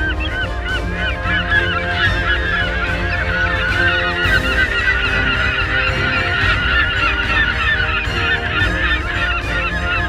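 Seabird colony calling: many short, rising-and-falling calls overlapping into a dense chorus that thickens after about two seconds, over a steady low rumble.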